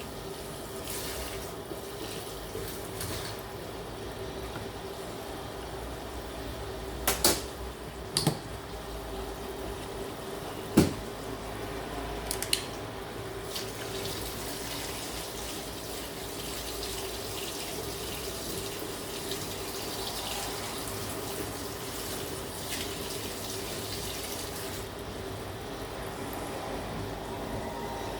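Water running steadily from a tap into a kitchen sink, with a few sharp knocks and clinks partway through.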